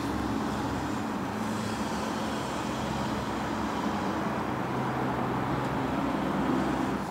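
Steady low background rumble with a faint hum and a hiss over it, like distant road traffic or an idling engine.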